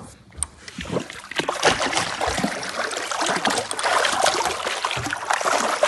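Water splashing and trickling, a dense crackling rush that swells about a second in and keeps going steadily, after a few sharp knocks at the start.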